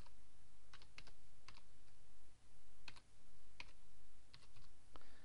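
Computer keyboard typing: single keystrokes and quick pairs at an irregular pace with short pauses, as a random string of letters and numbers is entered.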